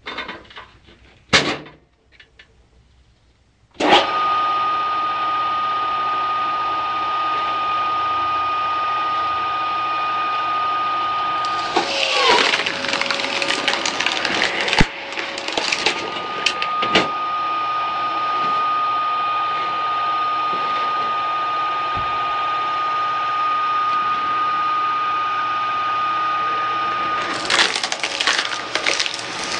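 Screw log splitter driven by a 7.5 kW low-speed electric motor, running with a steady whine that starts abruptly about four seconds in. Around the middle, and again near the end, the spinning cone bites into a log, with sharp cracks of wood splitting.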